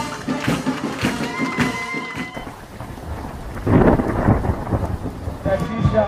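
Background music with a beat that drops away a couple of seconds in. It gives way to a loud, low rumbling rush of noise in the middle, and music comes back near the end.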